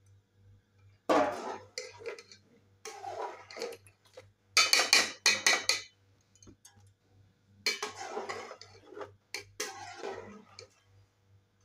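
Metal spoon scraping and clinking against the side of an aluminium cooking pot as rice is added to chicken stock and stirred in for pulao. It comes in about five bursts of roughly a second each.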